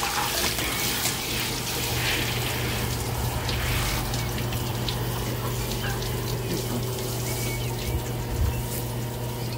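Garden hose spray nozzle spraying water onto and into glazed clay flowerpots: a steady hiss and splash of water. A steady low hum runs underneath.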